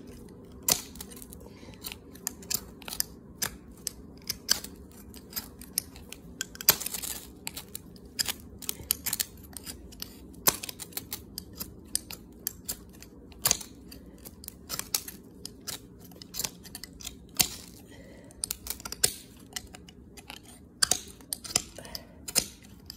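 Ferro rod scraped again and again with its striker: short, sharp scrapes at an uneven pace of one or two a second, with one longer scrape about seven seconds in, over a faint low hum.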